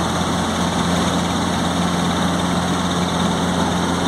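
Robinson helicopter in flight, heard from inside the cabin: a steady drone of engine and rotor, with a constant low hum under an even rushing noise.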